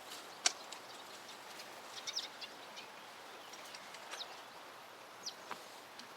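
Faint bird chirps: short high calls a few times, about two seconds in, around four seconds and near the end, over a quiet outdoor background. A few sharp clicks are heard, the loudest about half a second in.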